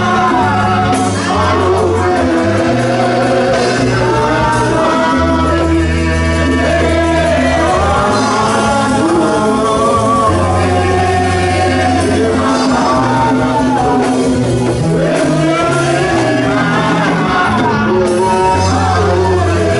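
Live amplified gospel praise music: a lead singer on a microphone over a band of keyboard, bass, drums and hand drums, with a steady bass line shifting notes every second or two.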